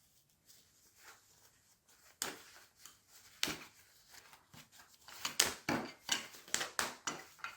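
Scissors snipping through the stitched seam of a faux-fur mitt: a few separate sharp snips, then a quick run of them near the end.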